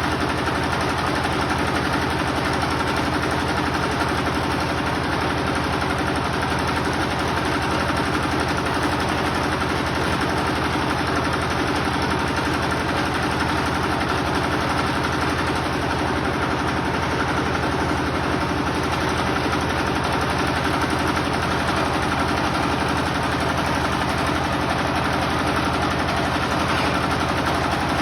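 Generator engine running steadily, a constant drone with no change in speed.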